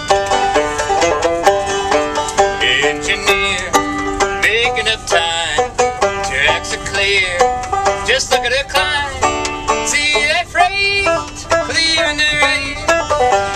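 Banjo played solo in a bluegrass style: a steady, rapid run of picked notes, an instrumental break with no singing.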